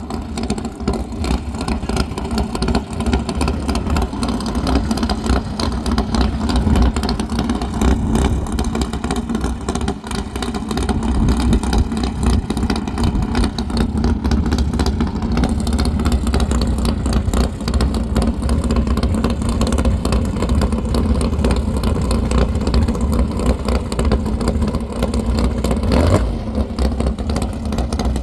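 1988 Chevrolet Camaro land-speed race car's engine running steadily at close range, a loud, even rumble.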